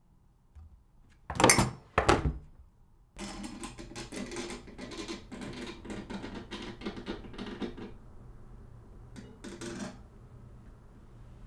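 Two loud thunks from a window's lever handle and casement, a second or so apart, then several seconds of dense clicking and rustling clatter, and one more short knock near the end.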